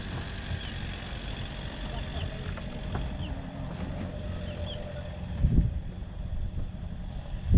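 A small engine running steadily at low speed, with faint short high chirps over it and a dull thump about five and a half seconds in.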